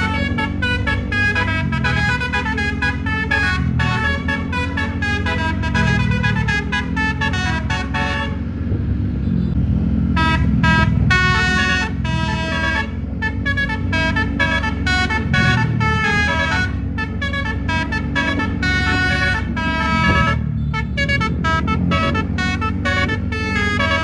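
Bus musical air horn (telolet) playing a fast melody of quick horn notes, with a short break about eight seconds in, over a steady low engine hum.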